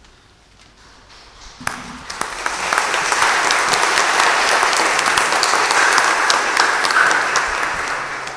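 Crowd applause from a church congregation and the priests at the altar, beginning after a sharp click about a second and a half in. It swells to full, steady clapping and tapers off near the end.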